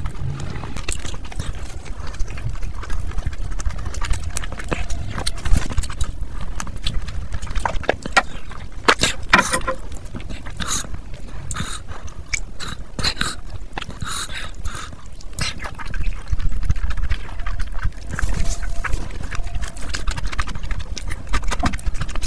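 Close-miked eating sounds: wet chewing and lip-smacking of mouthfuls of curry and rice eaten by hand, heard as quick, irregular clicks over a low rumble.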